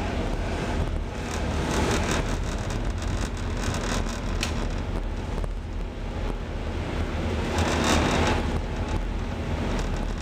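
A ship's engines give a steady low hum under wind and sea noise. Near the end a louder rush of water comes as a wave breaks over the stern onto the deck.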